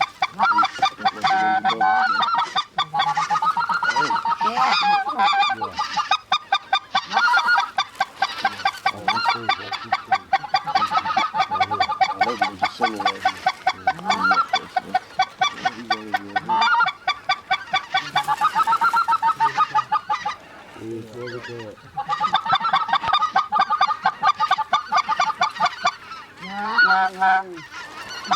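Geese honking and clucking in fast, overlapping runs, many at once, easing off for a moment a little past the twenty-second mark.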